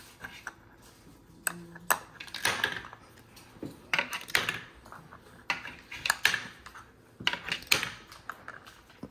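Plastic Connect Four discs clicking and clattering in an irregular string of sharp taps as they are picked up off a stone countertop, knocked against one another and dropped into the board.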